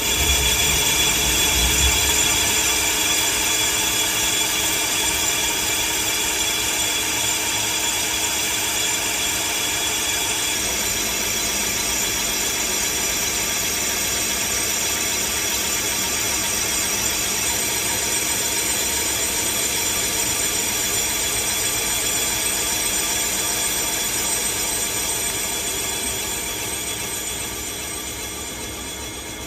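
A CNC lathe turning a large phosphor bronze bushing with a carbide insert: a steady cutting noise with high, ringing tones. The noise fades over the last few seconds.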